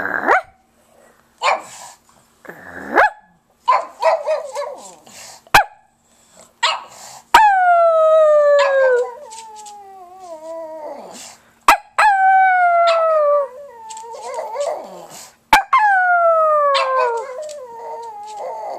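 A pug howling: three long howls that each slide steadily down in pitch, preceded by a run of short barks and yips.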